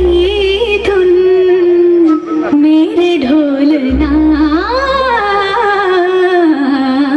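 Recorded Hindi film song with a woman singing long, gliding classical-style held notes over a low bass drone. The drone drops out about two seconds in and returns about four seconds in.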